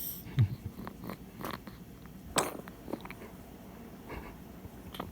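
Pet recovering from surgery making small sounds: a brief low vocal sound about half a second in, then scattered clicks and rustles, with one sharp click about midway.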